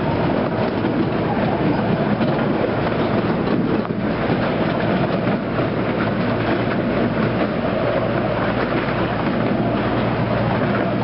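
Miniature railway train running along its track, heard from aboard an open passenger car: a steady rumble and rattle of wheels on rails and the cars jostling.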